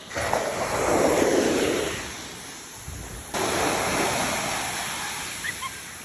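Ocean waves breaking on a beach: a wave crashes in at the start and washes out, and a second surge comes in about three seconds later and fades.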